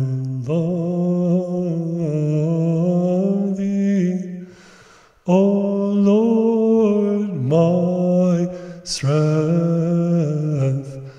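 A man's voice chanting an Orthodox hymn slowly, drawing out long held notes that step up and down in pitch. It breaks off for about a second about four seconds in and briefly again near nine seconds.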